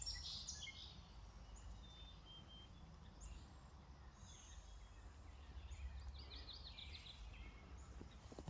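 Faint songbirds singing, with short high chirps and a quick run of notes about six seconds in, over a low steady rumble.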